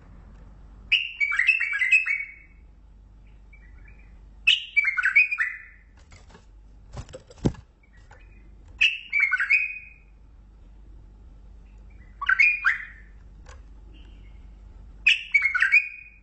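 A bulbul singing: five short phrases of quick, warbled notes, each about a second long, coming every three to four seconds.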